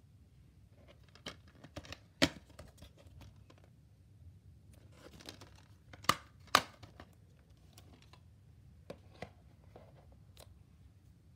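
Plastic DVD cases being handled and swapped: a string of sharp plastic clicks and clacks with some rustling, loudest about two seconds in and twice around six seconds in.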